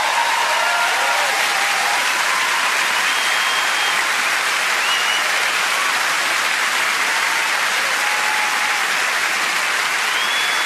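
Large theatre audience applauding steadily, with shouts and a few whistles cutting through, at the close of a musical number.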